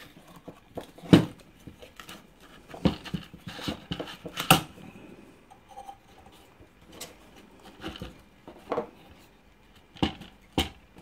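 Irregular metallic clicks and knocks from a small engine's recoil starter being handled: its pulley is turned and seated in the housing while the spring is wound.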